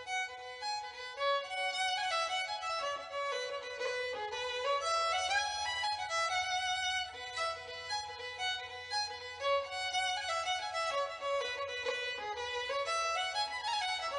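Background music: a violin playing a melody with sliding notes.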